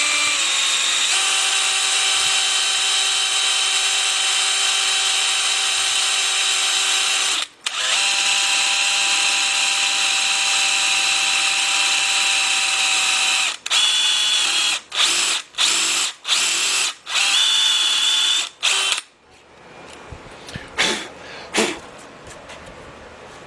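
Electric drill running steadily, boring a pin hole down through the cracked cast-iron deck of a Willys L-head engine block, the first step of a Lock-N-Stitch crack repair. It stops briefly about a third of the way in, later runs in a string of short bursts, and then stops. A couple of light knocks follow as the chips are cleared by hand.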